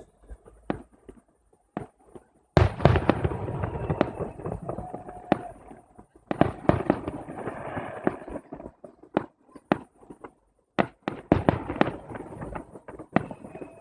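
Fireworks display: sharp bangs and crackling bursts. A loud burst about two and a half seconds in is followed by several seconds of dense crackle, then scattered single bangs and another quick flurry of pops near the end, heard through a tablet's microphone.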